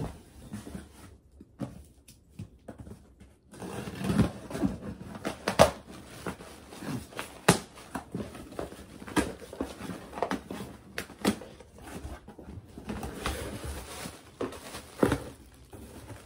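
Packaging being handled and a cardboard box opened on a table: scattered knocks and taps with bursts of rustling.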